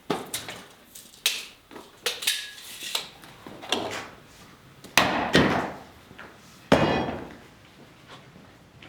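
Irregular knocks and clatters of hard objects, about a dozen, some with a short ring after them; the two loudest come about five and seven seconds in.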